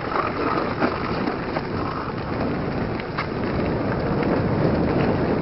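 Mountain bike rolling over a dirt trail: a steady rush of tyre noise and wind on the microphone, with scattered sharp clicks and rattles from the bumps.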